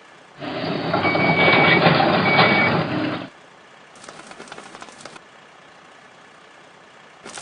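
Fire truck ladder-raising sound effect: a mechanical whirring hum of about three seconds with two short beeps in it, followed about four seconds in by a fainter rattling.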